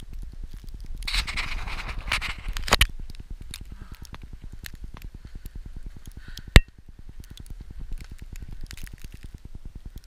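Boots trudging through deep fresh snow, crunching and scraping, loudest for a couple of seconds starting about a second in. A single sharp knock about six and a half seconds in.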